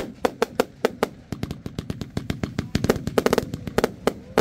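Lesli Smoke Elephant fireworks compound cake firing: a fast, irregular string of sharp launch and burst bangs, with a tight rapid-fire cluster of reports about three seconds in.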